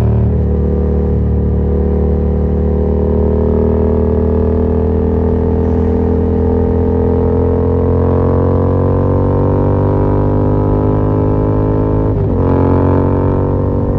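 Yamaha MT-07 parallel-twin engine through an open Yoshimura R77 exhaust with no dB killer, heard from the rider's seat: the note rises slowly and steadily as the bike pulls in one gear, then breaks and drops in pitch at a gear change about twelve seconds in before climbing again.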